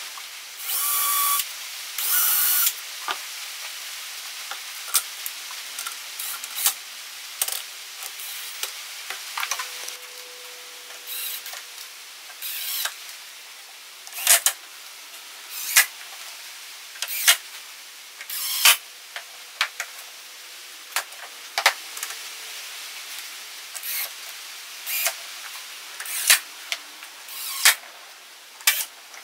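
Power drill running in two short bursts near the start, followed by many brief clicks, knocks and short bursts of tools and parts being handled during assembly.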